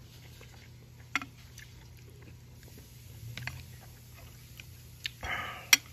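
Quiet chewing and mouth sounds of someone eating instant noodles, with a few sharp clicks, the loudest near the end, and a short noisy burst just before it. A steady low hum lies under it.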